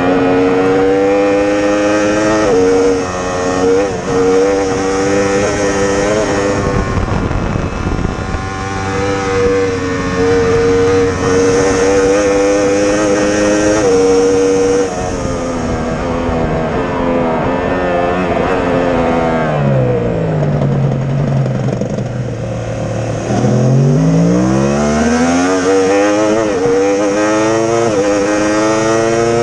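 Yamaha R1M superbike's inline-four engine at racing revs, heard onboard with wind rush. Quick upshifts drop the pitch sharply a few times, then the revs fall to a low note as the bike slows about two-thirds through, and climb again through the gears near the end.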